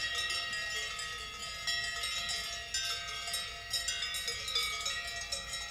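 Several cowbells clanking irregularly at different pitches, their tones ringing on and overlapping.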